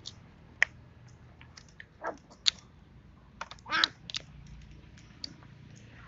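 Brittle tamarind shell cracking and crackling as it is peeled off the pod by hand: scattered sharp snaps and clicks, with a short cluster of crackles a little before the four-second mark.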